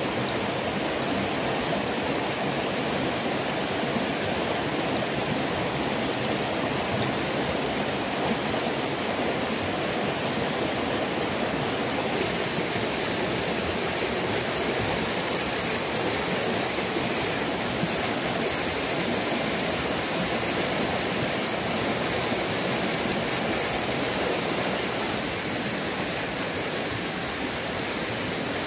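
Fast, shallow stream rushing over rocks, a steady splashing water noise.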